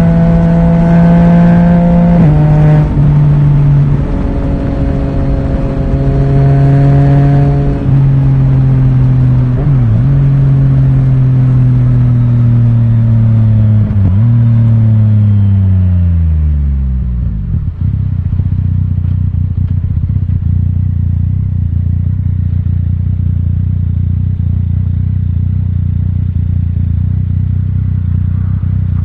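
Yamaha Tracer 900 GT's inline-three engine through an Akrapovic titanium exhaust with the dB killer removed. It runs at a steady note while cruising, then the note falls as the bike slows, with a couple of brief dips in pitch along the way. It settles into a steady low idle-like note for the second half.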